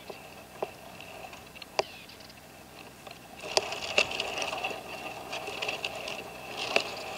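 Red-legged partridge calling: a few sharp clucks, then about halfway a quicker run of clucking calls, over a steady faint high-pitched whine.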